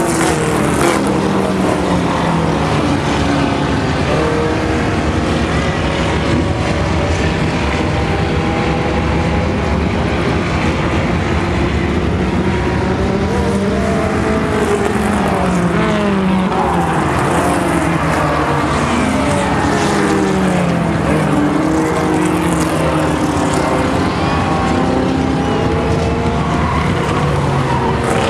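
Pack of small compact race cars lapping a dirt oval: several engines running at once, their pitches rising and falling as they come off and onto the throttle.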